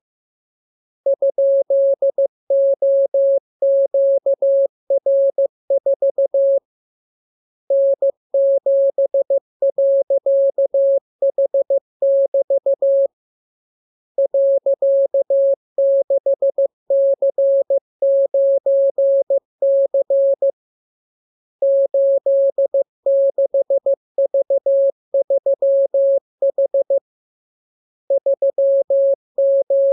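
Morse code practice signal: a single steady mid-pitched beep keyed on and off in dots and dashes, sent as groups of characters with a pause of about a second between groups.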